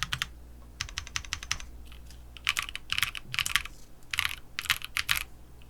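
Mechanical keyboard with PKKeys Misu linear switches being typed on: a quick run of keystrokes about a second in, then clumps of keypresses roughly twice a second through the rest.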